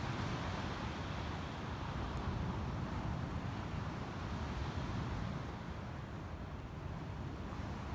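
Steady low rumbling noise of wind on the microphone.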